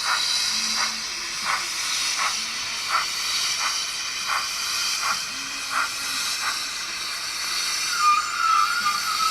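A model steam locomotive's digital sound decoder plays steam hiss with slow, regular exhaust chuffs, about one every 0.7 seconds, through its small onboard speaker. A steady high tone comes in near the end.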